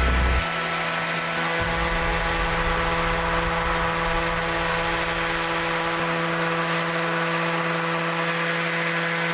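Electric power sander running steadily on plywood with 80-grit paper: a constant motor hum over a rough sanding hiss.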